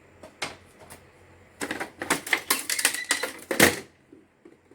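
Clicking and clattering of a printer's plastic and metal parts being handled during disassembly: a few single clicks, then a dense run of rapid clicks from about a second and a half in until nearly four seconds.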